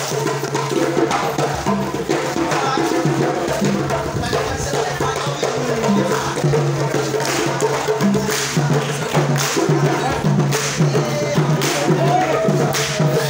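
Music with a percussive beat, with voices underneath.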